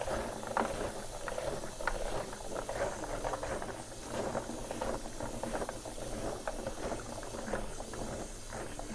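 Water sloshing and splashing in a bowl while dried tofu skin is soaked and rubbed in starch water to wash the dust and sand out of it, with many small irregular crackles.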